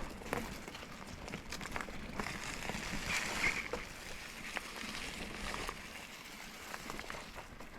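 Mountain bike riding over a dirt trail: a steady rush of tyre and trail noise with scattered clicks and rattles from the bike.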